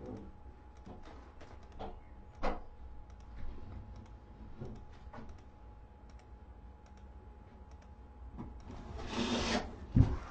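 A kitten playing on a blanket: scattered small clicks and taps, then a swell of scrabbling and rustling on the fabric as the kitten dashes off, ending in a sharp thump near the end.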